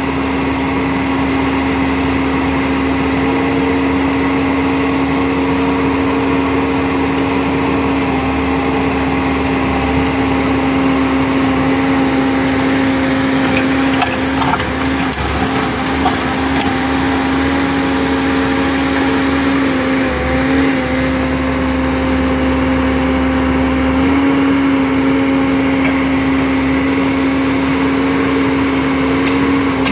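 JCB 155 skid steer loader's engine running at a steady speed, with a few brief knocks about halfway through.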